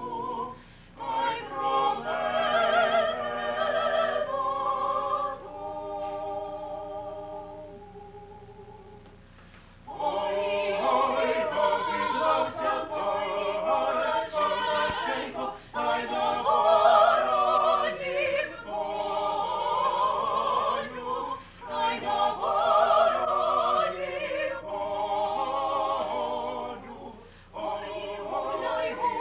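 Small Ukrainian vocal ensemble of men and women singing a Ukrainian song together in parts. About six seconds in the voices fade on a soft held chord, then come back in strongly about ten seconds in.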